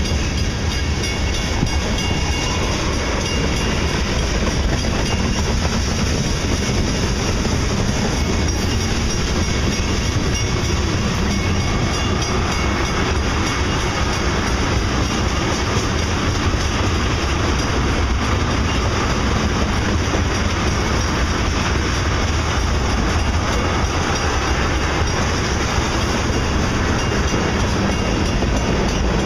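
Freight train of tank cars and covered hoppers rolling past at speed: the steady noise of steel wheels running on the rails, holding an even level throughout.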